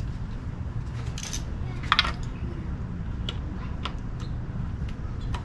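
A few light metallic clinks as a spark plug socket and extension are fitted down onto the plug, the loudest about two seconds in, over a steady low rumble.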